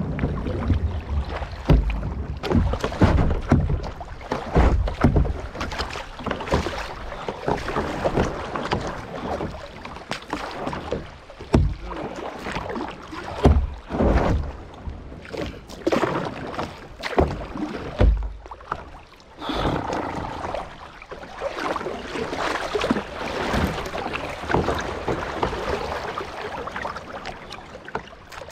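Kayak paddles dipping and splashing in river water in irregular strokes, with occasional low thumps.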